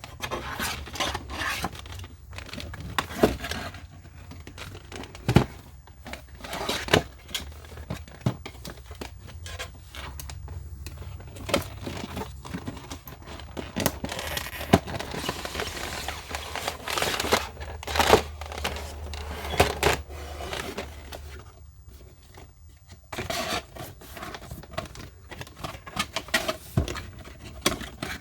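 Packaging being handled and opened: rustling and crinkling with scattered clicks and knocks, and tearing or cutting sounds.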